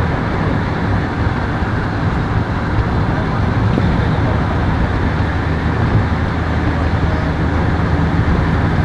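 Steady road traffic noise: a continuous vehicle rumble without breaks.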